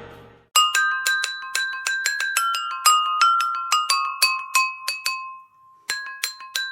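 A phone ringtone: a quick melody of short bell-like notes, about four a second. It starts just after the tail of the previous tone fades, breaks off briefly near the end, and starts over.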